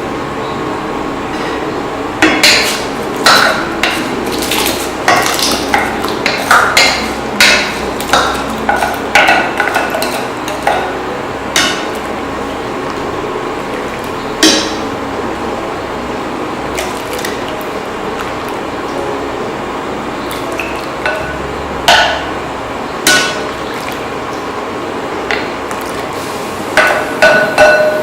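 Metal spoon knocking and scraping against a cooking pot while rice is stirred in boiling water: sharp clinks in irregular clusters over a steady hiss, thickest in the first half and again near the end.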